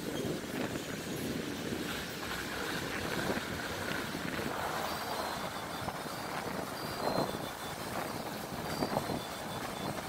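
Strong pre-storm wind gusting and buffeting the microphone, with a few short, high bird chirps in the second half.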